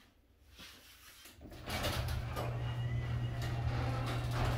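Garage door opening: its opener starts about a second and a half in and runs steadily with a strong low hum and a mechanical rattle.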